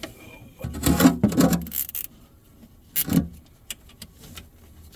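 Hands working on the vehicle's plastic trim and wiring under the seat: a cluster of knocks and rustles about a second in, a short hiss, another knock, then a few sharp clicks.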